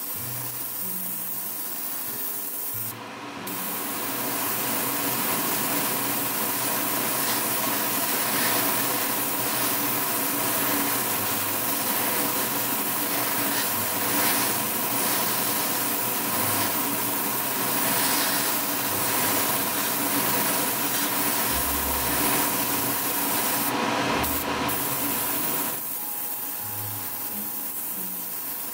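Airbrush spraying pearl paint: a steady hiss of air and paint that starts about three seconds in and stops a few seconds before the end, over a steady background hum.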